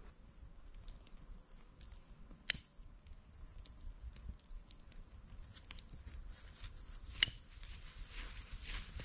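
Small campfire of dry twig kindling crackling as it catches, the crackle thickening in the second half, with two sharp snaps: one a couple of seconds in and one about seven seconds in.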